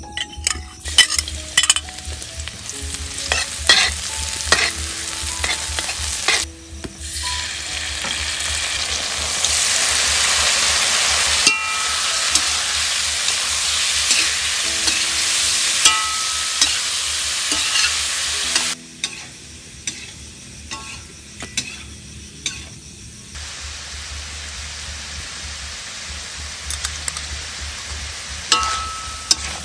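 Pork intestine stir-frying in hot oil in a metal wok: a metal spatula scrapes and clacks against the wok over sizzling. The sizzle is loudest in the middle, drops off abruptly about two-thirds through and carries on quieter, with more spatula clacks near the end.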